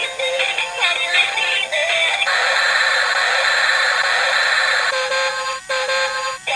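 Tinny electronic toy tune with synthesized singing from a small battery toy's speaker, thin and with no bass. A stretch of hiss about two seconds in lasts a couple of seconds, with the melody faint beneath it. Two brief dropouts come near the end.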